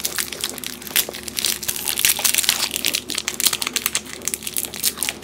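Plastic biscuit wrapper crinkling and crackling in quick, irregular bursts as it is unwrapped by hand.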